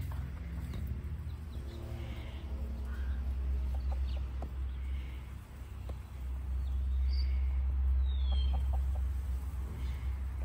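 Buff Orpington × Koekoek hens clucking now and then in short calls, over a steady low rumble.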